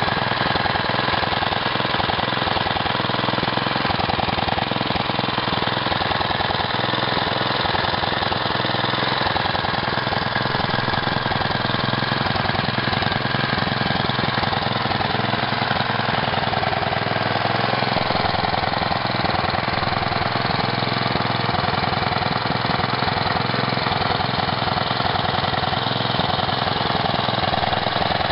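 A vintage Rover Baron 45 lawn mower's Briggs & Stratton 3 HP four-stroke single-cylinder engine running steadily at a constant speed.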